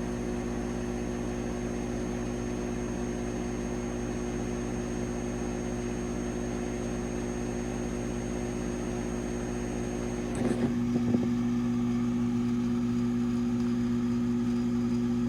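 Gas furnace induced-draft (flue) motor running with a steady hum while the furnace is calling for heat but fails to light. About ten seconds in there is a short rattle of clicks and the hum grows slightly louder. The technician guesses the pressure switch is keeping it from moving on to ignition.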